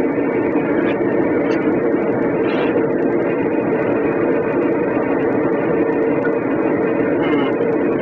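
A steady mechanical drone from a running machine, holding several even tones without change.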